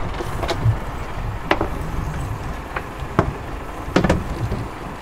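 About five sharp knocks and taps as a landed roosterfish is held down and unhooked with pliers on a fiberglass boat deck, over a steady low rumble.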